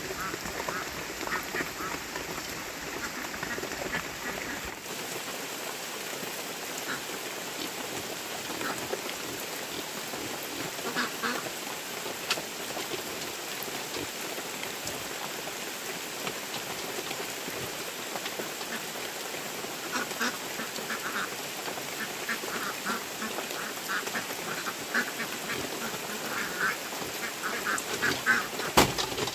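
Ducks quacking in short bursts over a steady hiss of rain. Near the end come a few sharp knocks as wood is set against the bamboo pen.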